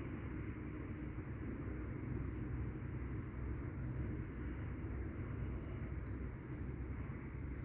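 Steady outdoor background noise: a low rumble with an even hiss, and a few very faint short high sounds.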